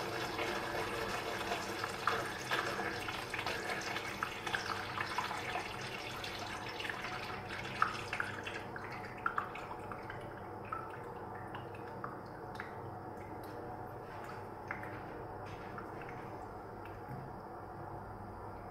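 Water running and dripping into the shallow reservoir held back by a model sand dam: a steady watery hiss with many small splashes for about the first eight seconds, then thinning to scattered separate drips.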